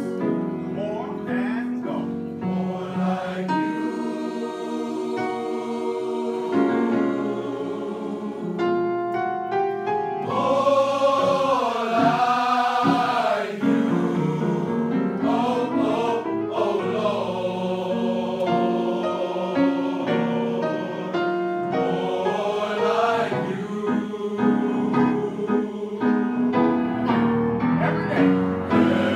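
Large mixed choir singing a gospel choral piece in sustained harmony, with piano accompaniment. About ten seconds in, a sliding, wavering vocal line rises above the chords for a few seconds.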